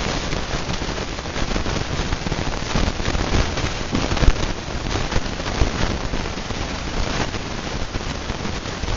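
A loud, dense crackling hiss full of small ticks, like rain pattering, over the running Hunter Low Profile ceiling fan, whose own motor sound doesn't stand out.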